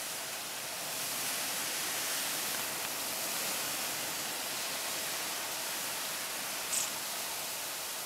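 Steady, even outdoor background hiss, a little louder from about a second in, with one very short high-pitched blip about seven seconds in.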